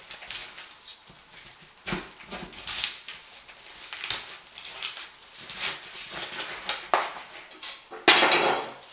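Large chef's knife sawing in repeated strokes through a whole pineapple's tough rind and leafy crown, cutting it in half lengthwise; the loudest stroke comes near the end.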